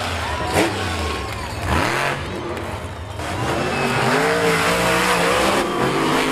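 Monster truck engines revving hard, their pitch climbing and dropping as the throttle is worked, with a sharp bang about half a second in.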